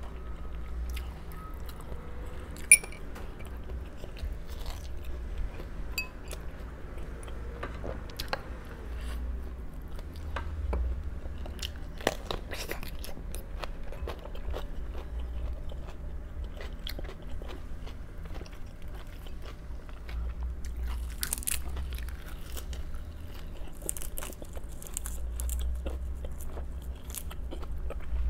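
Close-miked chewing and crunching of crisp raw vegetables, with many small crunches and bites throughout and one sharp click about three seconds in, over a steady low hum.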